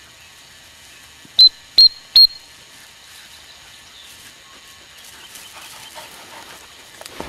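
Three short, high pips on a gundog whistle, about half a second apart. This is the usual multi-pip recall signal to a working spaniel.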